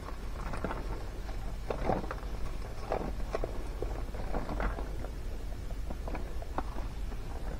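Popped popcorn being tipped from a bowl into a small cardstock box: an irregular run of light taps and rustles as the kernels drop and settle.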